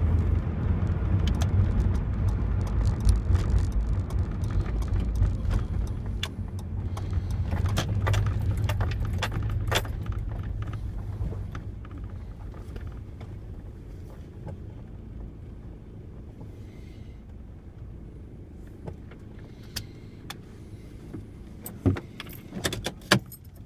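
Inside the cab of a 2002 Toyota Tacoma: engine and road rumble while driving, dropping to a much quieter idle about halfway through as the truck slows and pulls into a parking space. Light jingling and clicking rattles run throughout, with a few sharper clicks near the end.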